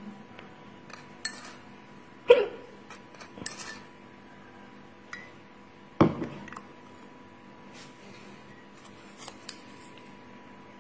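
A plastic spoon knocks and clinks against a glass mug as sugar is stirred into hot tea to dissolve it. The clinks are scattered, with two louder strikes about two seconds and six seconds in, over a faint steady hum.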